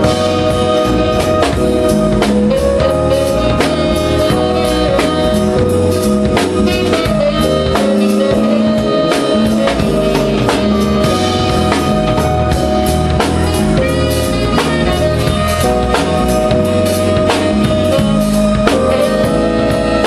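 Live band playing an instrumental groove: drum kit keeping a steady beat under bass, keyboards and saxophone, without a pause.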